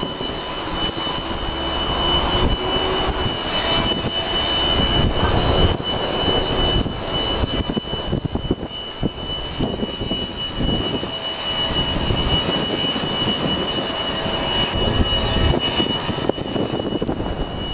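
Steady machinery roar with a constant high whine, heard from a cruise ship's open upper deck, with gusts of wind buffeting the microphone.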